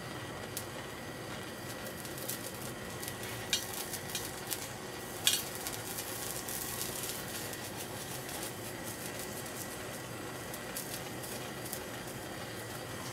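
Propane torch flame hissing steadily on a brass tracker bar while the flux paste on it sizzles as it boils off. Scattered sharp crackles and pops come between about three and a half and five and a half seconds in, the sharpest about five seconds in.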